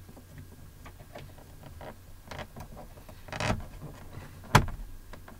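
Small plastic clicks and taps of a door-trim piece being fitted around the inside door handle of a 2002 Chevrolet Avalanche's door panel. There is a short scraping rustle a little past three seconds and one sharp, loud snap about four and a half seconds in.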